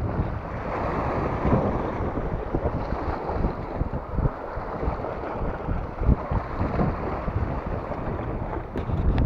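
Strong wind buffeting the microphone in uneven gusts over sea waves washing and breaking against shore rocks, with a few light clicks near the end.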